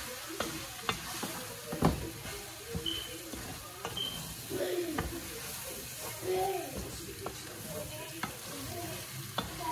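A spoon stirring raw parboiled rice into sautéed sausage, chicken and vegetables in a metal pot, scraping through the mixture and knocking against the pot's sides again and again, over a light frying sizzle. One knock about two seconds in is the loudest.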